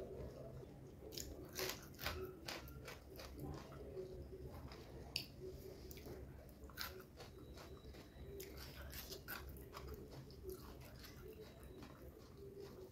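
Chewing and mouth sounds of someone eating chicken biryani: soft wet smacks and clicks of the lips and tongue. They come thickest over the first few seconds and more sparsely after.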